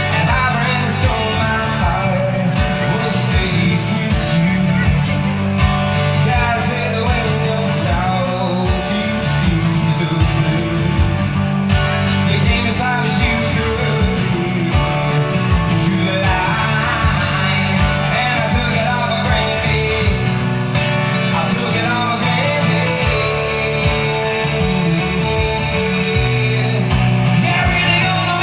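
Solo acoustic guitar played live through a PA, a continuous, busy passage at a steady loud level.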